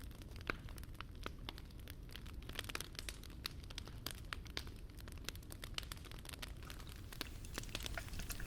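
Wood fire crackling softly, with irregular small pops and snaps over a low steady rumble.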